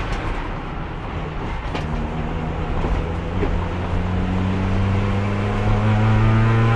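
Race car engine pulling from low revs in fourth gear, its note rising slowly and growing louder as the car accelerates. The transmission is failing: no third gear and no shifting at speed, so the car is held in fourth throughout.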